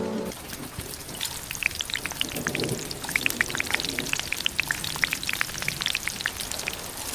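Rain falling steadily, with many separate sharp drop ticks over a soft hiss.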